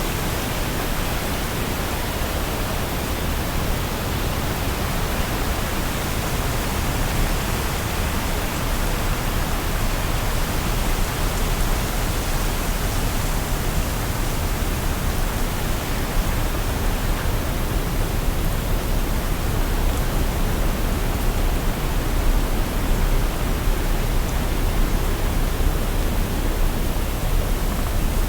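A waterfall's steady rush of falling water, an even, unbroken roar.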